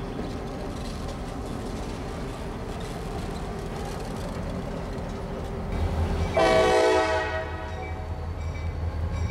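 Norfolk Southern EMD diesel locomotive running with a steady engine drone; about six and a half seconds in, a short horn blast of under a second, after which a deeper engine rumble takes over.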